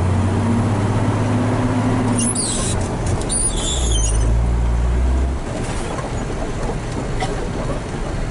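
Hino 500 FM320TI truck's diesel engine running under way, heard from inside the cab. Its note drops lower about four seconds in, and high-pitched squeaks come through between about two and four seconds. The sound gets quieter a little past halfway.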